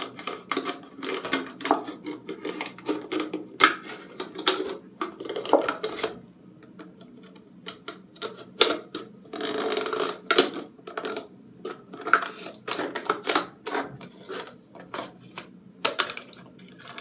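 Scissors snipping through a thin plastic drink bottle, a dense run of irregular crunching clicks and crinkles as the blades bite and the plastic flexes, cutting a piece off the bottle.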